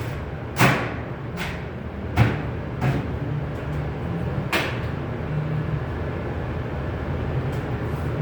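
Five sharp knocks in the first five seconds, the first and third loudest, over a steady low rumble.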